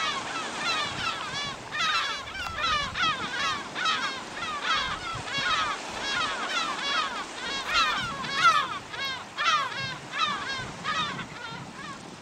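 A flock of birds calling: many short, overlapping calls in quick succession, fading near the end.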